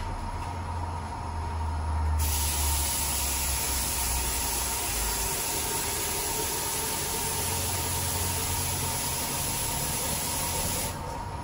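Gas stove burner heating a pot of coconut milk: a low, steady rumble, joined by a strong high hiss that starts abruptly about two seconds in and cuts off near the end.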